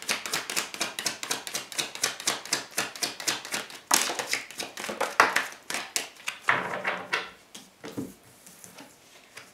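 Tarot cards being shuffled by hand: a rapid run of card clicks for about four seconds. Then a few single cards are slapped down onto a wooden tabletop, and it quiets near the end.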